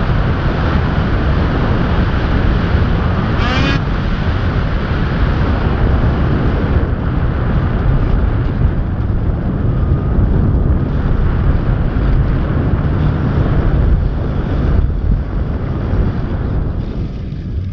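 Snowmobile engine running at speed, with heavy wind noise on the microphone. The engine eases off near the end.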